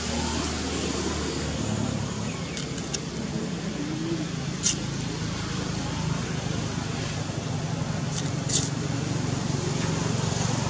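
Steady outdoor background rumble, with a few short, sharp clicks or chirps: two close together a few seconds in, one around the middle and two near the end.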